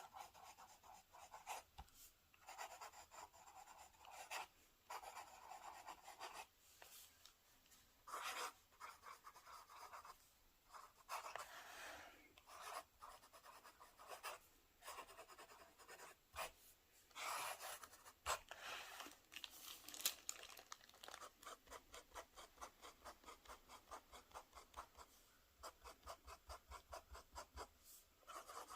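Broad-nib fountain pen writing on paper: quiet, scratchy nib strokes in short irregular runs, turning into a quick regular run of short strokes in the last third.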